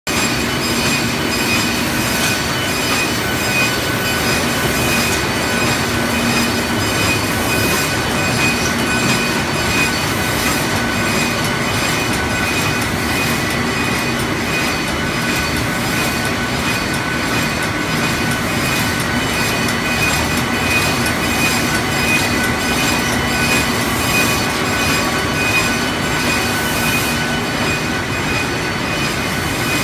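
Print-finishing machinery running in a paper-feeding line: a steady mechanical clatter with a constant high whine and a lower hum throughout.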